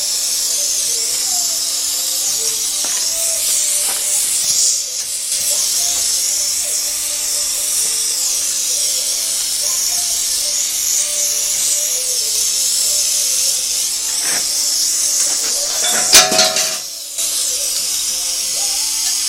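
Gas torch flame hissing steadily while it heats a metal rose red-hot. Near the end there is one sudden loud knock with a brief ring, and faint music runs underneath.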